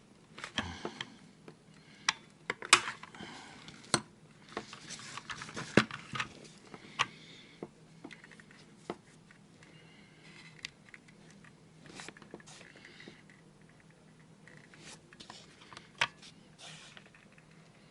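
Hands working on an opened electronic blood pressure monitor: irregular sharp clicks and taps a second or two apart, with short scraping and rustling sounds between them.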